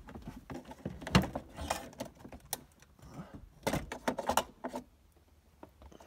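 Irregular clicks, knocks and plastic-and-metal rattles of a car's passenger airbag module being worked loose and lifted out of the dashboard, with a cluster of clatters about four seconds in.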